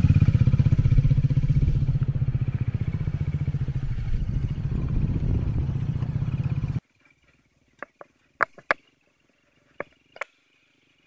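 Motorcycle engine running at low revs as the bike rides off, a steady low rumble that eases slightly in loudness. It cuts off abruptly about seven seconds in, leaving near silence with a few faint clicks.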